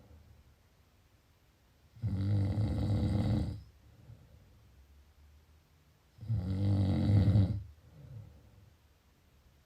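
A sleeping person snoring: two loud, low, rasping snores about four seconds apart, each lasting about a second and a half and followed by a fainter breath.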